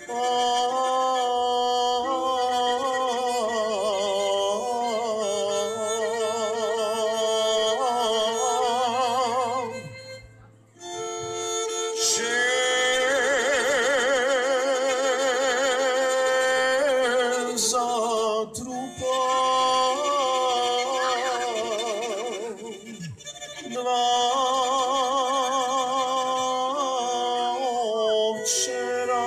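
Live tzigane-style folk music: accordions playing a melody with a bowed string instrument, the long held notes wavering with vibrato. The music breaks off briefly about ten seconds in, then resumes.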